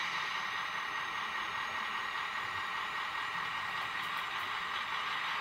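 Sound decoder in a TT-scale class 118 model diesel locomotive playing an ESU recording of a class 246 diesel engine idling: a steady, hissy hum through the model's tiny loudspeaker, thin and lacking in bass.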